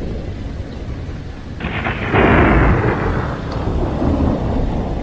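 Thunderstorm: a low rumble with rain, then a sudden louder rush of noise about one and a half seconds in that fades over the next two seconds.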